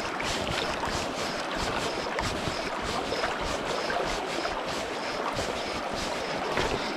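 River water rushing steadily, with wind buffeting the microphone.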